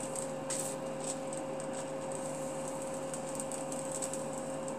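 Faint scratching of a marker drawing on freezer paper laid over fabric, a few soft strokes over a steady background hum.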